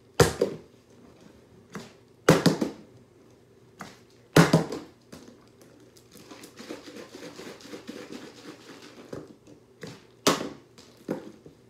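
A partly filled plastic drink bottle tossed and hitting a wooden floor: three sharp thuds in the first five seconds, about two seconds apart, and another near the end. In between, the plastic bottle crinkles as it is handled.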